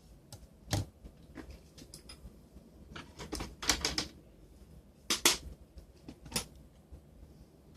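Irregular sharp clicks and taps of small parts from a Palm Treo 755p smartphone being handled during disassembly, with a quick run of several clicks near the middle.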